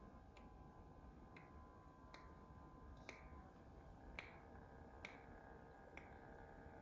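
Faint, sharp clicks of a child's fingernails being clipped, seven snips at roughly one per second.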